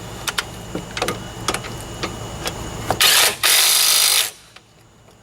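Sharp clicks about twice a second as a bolt on a car's brake caliper is tightened, then about three seconds in a cordless power tool runs loudly for just over a second in two short bursts, driving the bolt home tight.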